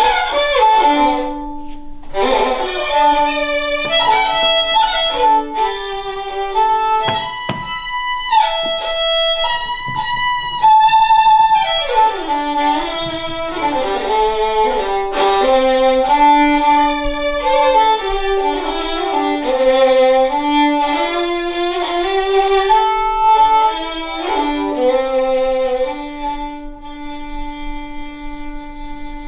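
Fiddle playing a melody of held notes, ending on a long sustained note.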